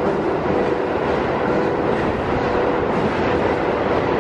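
Steady train noise at an underground subway platform: a continuous rumble with a faint tone that comes and goes.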